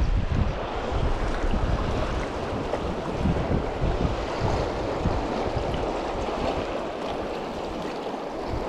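Fast river current rushing steadily, the river running high, with wind buffeting the microphone in low gusts that ease off over the second half.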